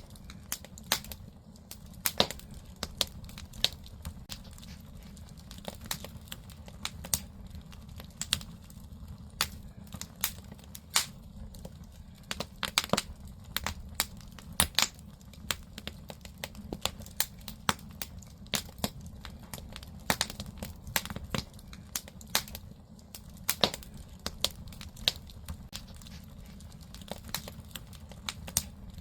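Firewood burning in the firebox of a traditional Korean agungi (ondol under-floor heating stove), crackling with irregular sharp pops, several a second at times, over a steady low rumble.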